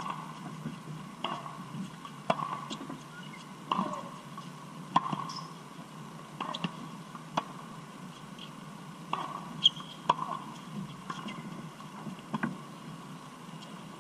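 Tennis balls struck by rackets and bouncing on a hard court during a rally: sharp pops every second or so. The loudest comes right at the start, as the near player swings.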